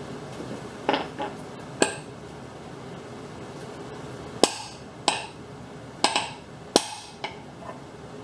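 Hammer blows on metal, driving a mower deck spindle assembly together: about eight sharp, irregularly spaced strikes, each with a brief metallic ring.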